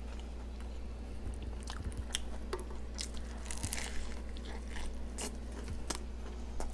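Close-up chewing of a bacon cheeseburger topped with crispy French fried onions: scattered crunches and wet mouth clicks.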